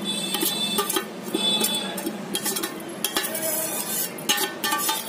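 Steel spoon scraping and clinking against a steel plate as chopped coriander and green chillies are pushed off it into a steel bowl of mashed potato: repeated short metal-on-metal clicks and scrapes.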